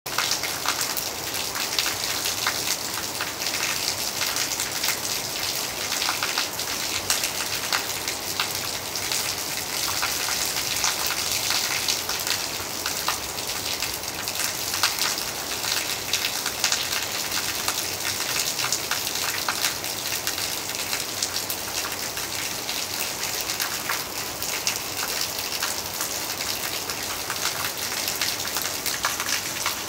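Steady heavy rain: a dense hiss of falling drops with many small ticks, and rainwater runoff splashing onto wet tiled paving.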